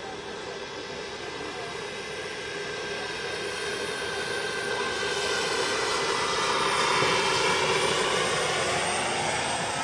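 Turbine engine and rotors of a turbine-powered radio-controlled Mi-24 Hind model helicopter: a steady high whine over a rushing noise, growing louder to a peak about seven seconds in, then easing off.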